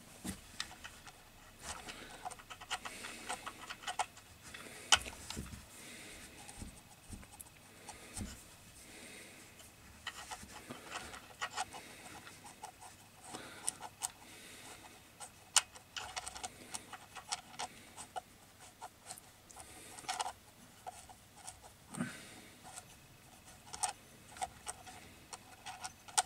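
Irregular small clicks and taps of terminal nuts and washers being fitted and run down by hand onto the brass studs of a single-phase motor's terminal block.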